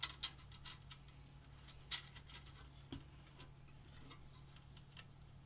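Faint, irregular small clicks as a nylon zip tie is threaded and pulled tight around a bundle of PC cables, a few quick ones at first, then single clicks about two and three seconds in.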